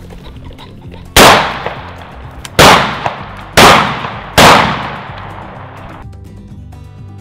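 Four shotgun shots, the last three coming faster, each cutting off into a short fading ring, over background music.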